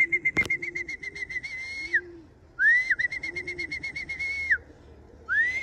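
Three high whistled calls, each rising, then holding a fast warbling pulse for a second or two before dropping away, over softer repeated cooing of pigeons at the loft. A single sharp click about half a second in.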